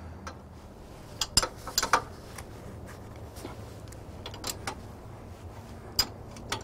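A wrench clinking on the steel nuts and bolts of a shock-absorber mounting bracket as the set nuts are tightened. The clicks are sharp, metallic and irregular: a cluster between one and two seconds in, a few single ones after, and a louder one near the end.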